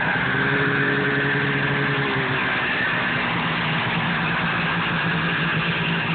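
Snowmobile engine running at low speed as the sled rides toward the listener, a steady engine note with a higher tone added for the first two seconds or so.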